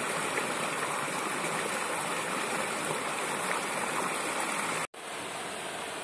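Forest stream rushing and splashing over rocks in a small cascade, a steady rush of water. Near the end the sound cuts out for an instant and resumes a little quieter: a small waterfall pouring into a pool.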